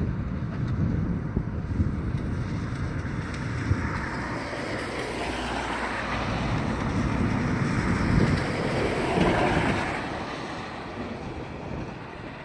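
Storm wind blowing hard across the microphone, a continuous low rumble with a hissing gust that swells in the middle and dies away near the end.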